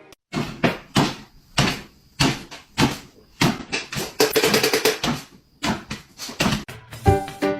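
A run of sharp knocks and thuds at an uneven pace, about two a second, with a denser clatter a little past the middle.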